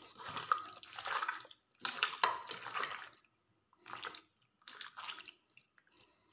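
Wet squelching of a hand squeezing and mixing raw chicken pieces in an oily spice marinade, in irregular bursts with short pauses between.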